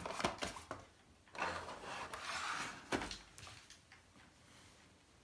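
Cardboard packaging and papers being handled: a few light clicks and taps, a sliding, rustling scrape lasting about a second and a half, then a single knock about three seconds in.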